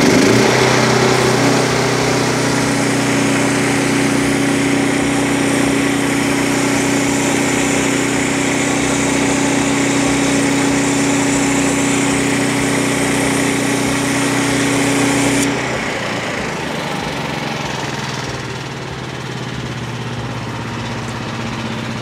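Small gasoline engine of a Frontier OS23 portable bandsaw mill (a 10 hp, 306 cc Briggs & Stratton) running steadily under load while the band blade cuts a thin veneer slab off a black cherry log. About fifteen seconds in, the cutting hiss stops suddenly as the cut finishes, and the engine keeps running more quietly.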